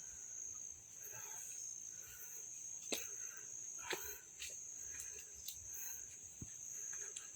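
Insects trilling steadily on one high note, with a few sharp clicks scattered through it.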